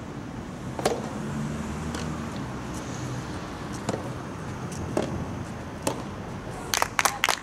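Soft tennis rally: a soft rubber ball struck by rackets several times, a second or so apart. Near the end of the rally a few people start clapping as the point is won, over a low steady background rumble.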